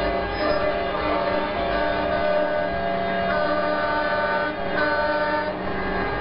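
Semi-truck air horns blowing long, overlapping chords over the rumble of the trucks' engines, the chord changing every second or two as different horns join in and drop out.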